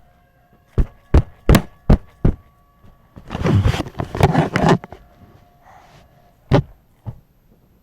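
A run of sharp knocks or thumps close to the microphone: five in quick succession, then about a second and a half of clattering, then two more single knocks.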